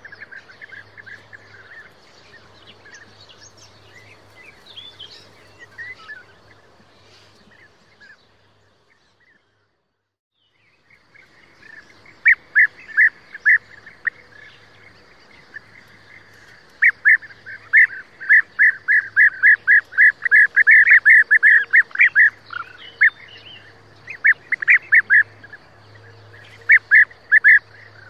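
A group of European bee-eaters calling, short purring 'prruip' calls repeated again and again. The calls are faint and scattered at first, and after a brief near-silent gap about a third of the way in they come loud and fast, densest about two-thirds of the way through.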